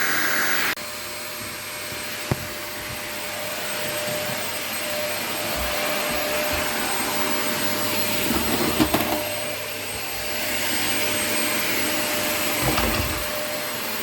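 Vacuum cleaner running steadily, a hissing motor noise with a faint hum. About a second in its sound changes abruptly and drops, and a few dull knocks come later.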